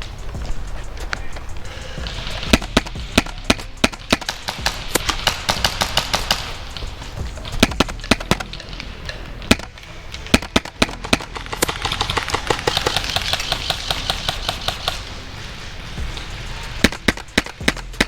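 Airsoft guns firing: rapid strings of sharp cracks twice, with scattered single shots in between.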